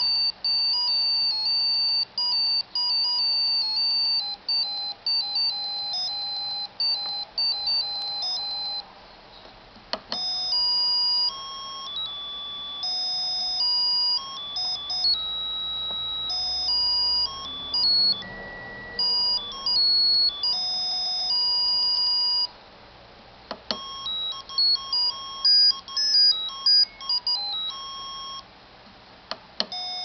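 A piezo disc buzzer driven by an ATmega8 microcontroller plays RTTTL ringtone melodies one beeping note at a time, in a thin, buzzy electronic tone. Each tune ends and a new one begins after short breaks about 9 and 23 seconds in, and again near the end.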